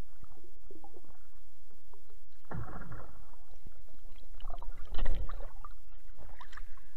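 Sound recorded with the camera underwater in a lake: a steady low rumble of water against the housing, with muffled gurgling swishes about two and a half seconds in and again, louder, around five seconds in.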